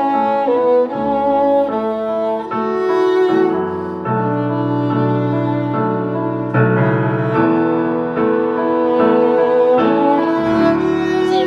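Bowed string ensemble with violas playing a slow passage together: several parts hold sustained chords that move to a new chord about every second. A few brief clicks sound near the end.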